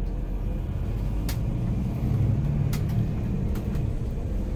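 Volvo B11R coach on the move, heard from inside the front crew cabin: a steady low rumble of its diesel engine and road noise. A few brief clicks sound over it.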